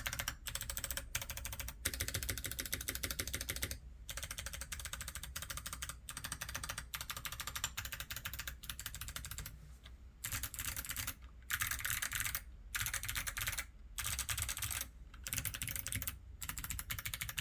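Fast, continuous typing on a mechanical keyboard with Kailh Box Pink clicky switches, each keystroke a crisp click, in runs broken by short pauses. The board is tape-modded with PE foam switch pads under XDA keycaps, which shapes the keystroke sound.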